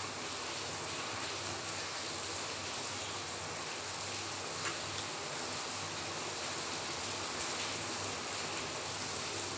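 Steady hiss of heavy rain, with one faint tap about five seconds in.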